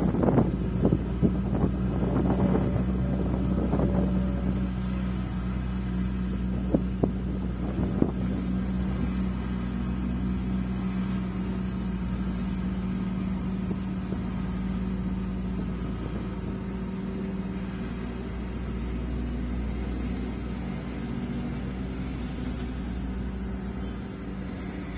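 Heavy diesel engine of an L&T Poclain 300 tracked excavator running steadily. In the first couple of seconds rock and soil clatter as the bucket dumps into the tipper's steel body, and a few sharp knocks follow around seven and eight seconds in.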